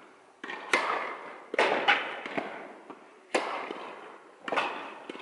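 Tennis rally: a serve, then the ball struck by rackets and bouncing on the court, a string of sharp pops about half a second to a second apart, each ringing on in the echo of a large indoor tennis hall. The loudest pop, the serve, comes about three quarters of a second in.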